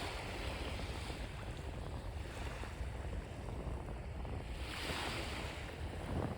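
Waves washing onto the beach, one wash swelling and fading about five seconds in, over a steady low rumble of wind on the microphone.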